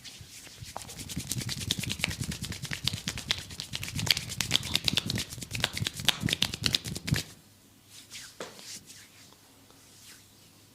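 A masseur's hands working vigorously over skin in quick rhythmic strokes, several a second, then stopping suddenly about seven seconds in, followed by a few faint soft touches.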